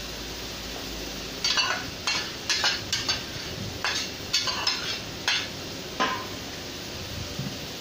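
Metal ladle scraping and knocking against a large aluminium cooking pot in about nine irregular strokes as tomato puree is added and stirred into a sizzling oil-and-tomato base. The strokes start about a second and a half in and stop about six seconds in, over a steady sizzle.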